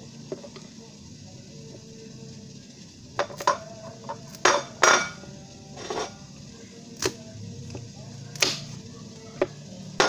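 Kitchen knife and dishes knocking and clinking on a wooden cutting board as a butternut squash is handled and cut. It is a string of sharp, irregular knocks, the loudest pair about four and a half to five seconds in.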